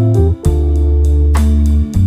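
Instrumental background music with held bass notes and a steady beat.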